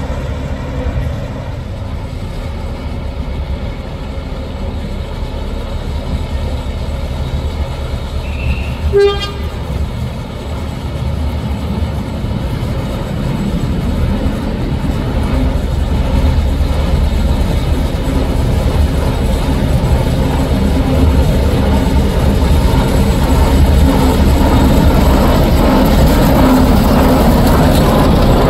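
Ruston 48 diesel shunting locomotive's engine running steadily, getting louder over the second half. One short toot of its horn comes about nine seconds in.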